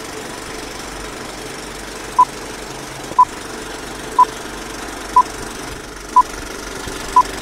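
Old-film countdown leader sound effect: a steady, film-projector-style rattle with a short beep once a second, six beeps starting about two seconds in.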